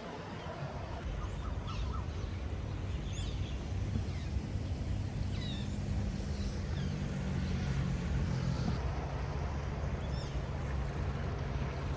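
Scattered short bird chirps and calls over a steady low engine drone.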